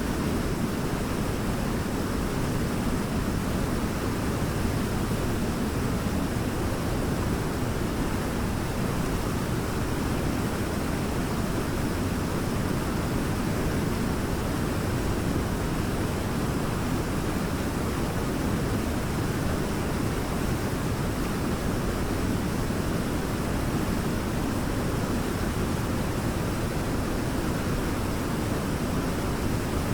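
Waterfall: water pouring and splashing in a steady, deep, unbroken rush.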